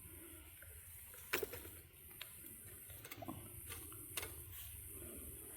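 Sap-covered pine cones catching fire in a small wood-burning camp stove, with a few sharp, sparse pops and crackles over a faint steady background.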